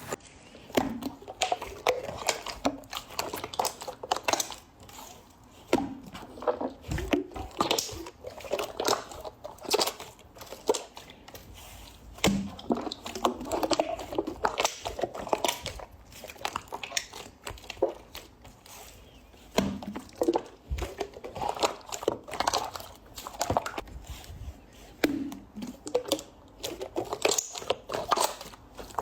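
Slime being squished and poked by hand, making irregular wet clicks and pops.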